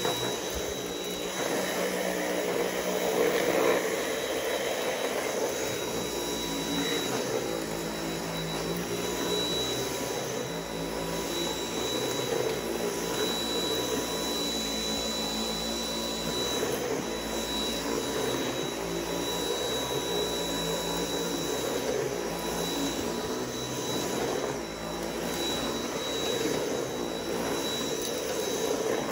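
Dyson V8 cordless stick vacuum running steadily with a high motor whine as its motorized cleaner head is pushed back and forth over carpet and a rug.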